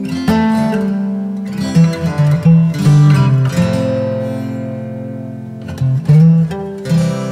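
Acoustic guitar music: chords picked and strummed, with one long chord left ringing through the middle.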